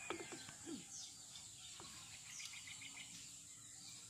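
Faint outdoor ambience: scattered short bird chirps over a steady, high insect drone.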